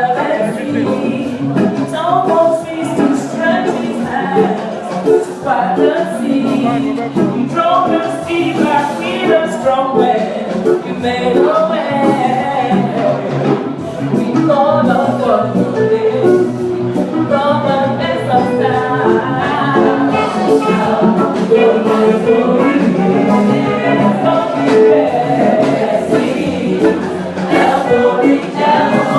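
Adult church choir singing an anthem with instrumental accompaniment and percussion.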